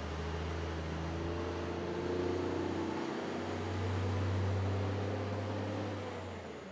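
Diesel engine of a long-hood semi truck pulling a trailer slowly past at low speed. The low drone swells as the truck passes about midway, then fades near the end.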